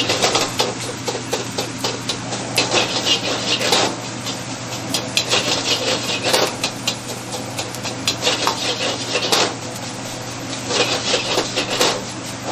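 Metal wok spatula and ladle scraping and clanking against a wok as fried rice is stir-fried and tossed, in quick runs of strokes with short pauses, over the steady hiss of a gas wok burner.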